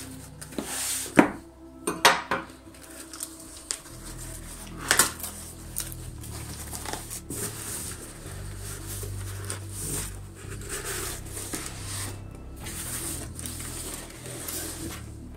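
Clinks and knocks from handling a katana and its packaging during unboxing, sharpest about one, two and five seconds in, then quieter handling noise.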